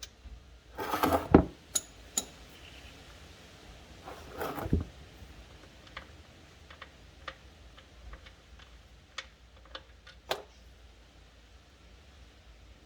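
Handling noise: two short scraping rustles, the first ending in a sharp knock, then scattered light clicks and taps.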